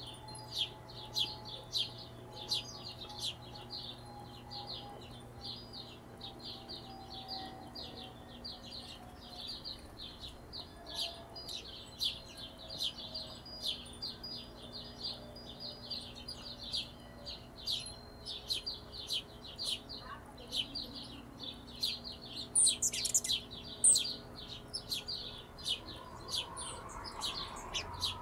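Hummingbirds chirping: a dense stream of rapid, high chips, several a second, with a few sharper, higher squeaks about three-quarters of the way through.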